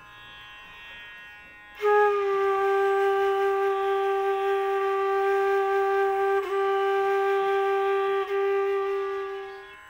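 Bamboo bansuri flute holding one long, steady note in Raag Yaman. The note starts about two seconds in after a short pause for breath, has two brief flicks partway through, and fades just before the end.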